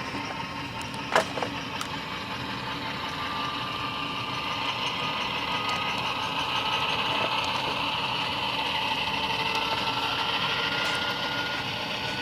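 Model diesel locomotive running with its Tsunami sound decoder playing diesel engine sound through its small speaker, with a thin whine that creeps slightly up in pitch as it moves forward. A single sharp click about a second in.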